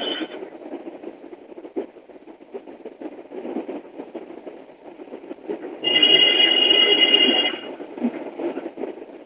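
A telephone ringing: one ring ends just at the start and a longer ring of steady high tones lasts about a second and a half, beginning about six seconds in, over a low muffled background of rustling.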